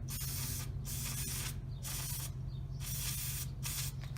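A spray hissing in about five short bursts, cleaning the cutting oil and metal shavings off a thread tap.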